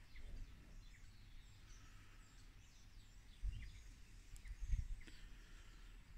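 Faint outdoor ambience with scattered small bird chirps and a low rumble, broken by two short low bumps on the microphone about three and a half and five seconds in.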